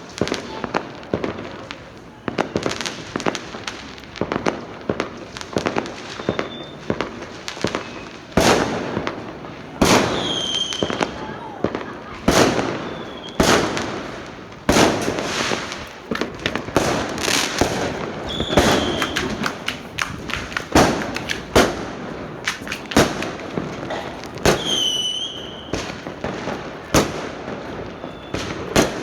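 Fireworks going off in quick succession: many sharp bangs and crackles, with short whistling tones three times.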